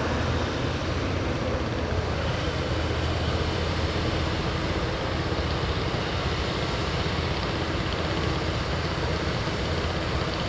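Backhoe loader's diesel engine running steadily, a low even drone with a broad mechanical noise over it.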